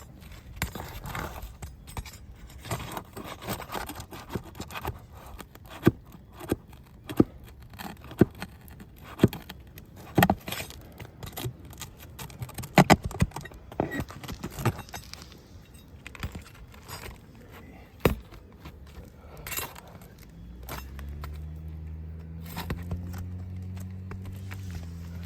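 Asphalt roof shingles being lifted and bent by hand, giving a run of sharp clicks, snaps and scrapes as the tabs come unsealed and shift against their nails. A steady low hum starts near the end.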